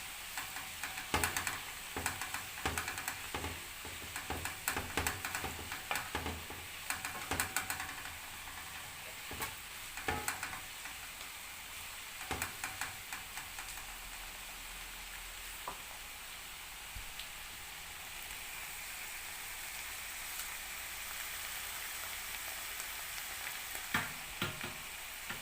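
Vegetables sizzling in a frying pan as they are stirred, the spoon scraping and knocking against the pan many times over the first dozen seconds or so. After that only a steady sizzle remains.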